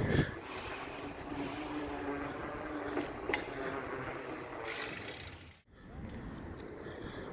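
Slopestyle mountain bike rolling on pavement: tyre noise with a ratcheting freewheel, a sharp click a little over three seconds in, and a sudden break near the end.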